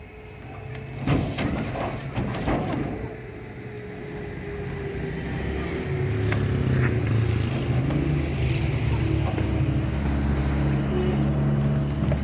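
A few knocks, then a vehicle engine running, building up over a few seconds and then holding a steady low hum.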